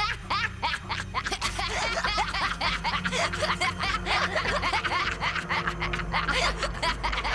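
A woman laughing hard, a long run of quick, short laughs, over a low music bed.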